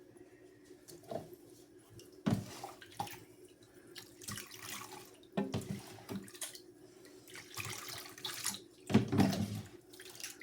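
Running water splashing in a sink as a puppy is bathed, coming in irregular bursts with louder splashes about two, five and a half and nine seconds in.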